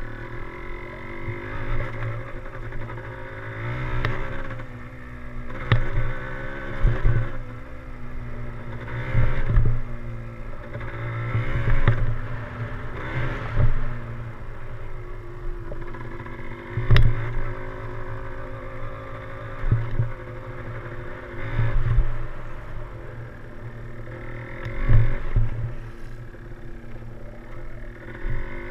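Yamaha DT175's single-cylinder two-stroke engine running under way, its pitch rising and falling with the throttle. Loud thumps come every two or three seconds.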